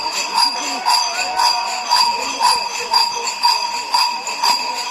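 Kukeri mummers' large bells, worn on the belt, clanging together in a steady rhythm of about two strokes a second as the dancers sway and step.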